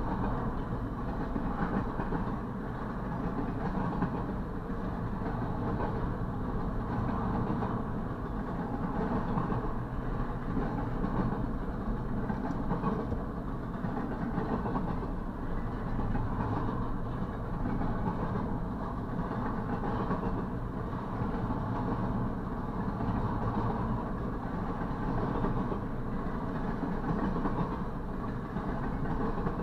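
Double-stack intermodal freight cars rolling past on the rails: a steady rumble of steel wheels with some clickety-clack over the rail joints, heard from inside a parked vehicle.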